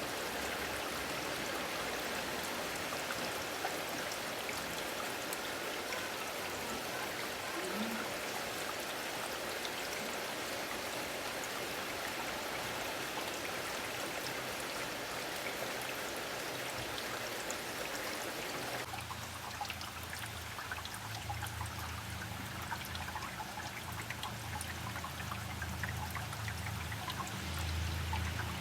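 Steady rain falling, with drops pattering and water trickling. About two-thirds of the way through it changes suddenly to a thinner patter over a low hum.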